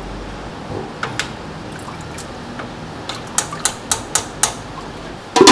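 Fine-mesh skimmer lifting scum out of a pot of lamb broth, the broth dripping and trickling back into the pot. There is a quick run of sharp taps past the middle and a louder clatter at the very end.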